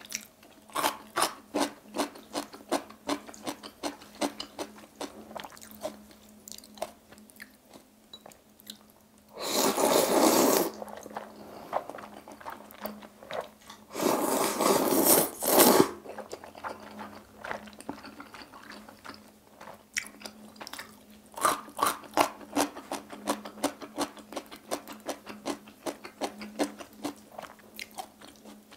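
Close-miked eating: crunchy chewing of cubed radish kimchi (kkakdugi), then two loud slurps of jjajang noodles, one about ten seconds in and one about fourteen seconds in, each lasting a second or two. More chewing follows the slurps.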